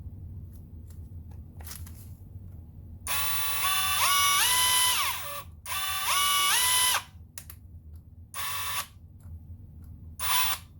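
Cordless impact wrench running free with no load in trigger pulls. Its motor whine climbs in steps as it spins up during two runs of about two seconds each, then comes in two short blips.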